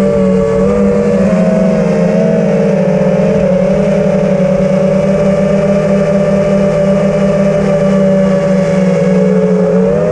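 FPV racing quadcopter's brushless motors and propellers droning steadily as it flies, picked up close by its onboard camera. The pitch wobbles slightly with throttle in the first few seconds, then holds steady.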